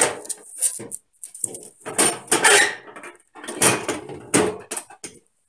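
Chrome wire pot support of a Coleman Triton camp stove rattling and clinking against the stove's steel cooktop as it is handled, in several bursts of clatter.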